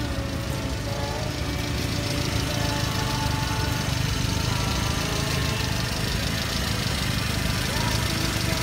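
Subaru Sambar's EN07 660 cc four-cylinder engine idling steadily, heard up close at the open engine hatch.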